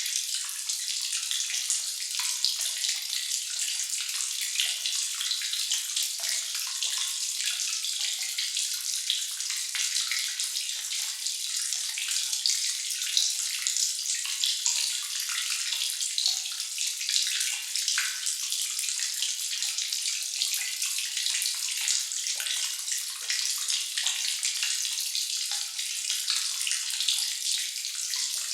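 Water dripping and trickling in an echoing sewer or cave: a steady wash of many small drips and splashes.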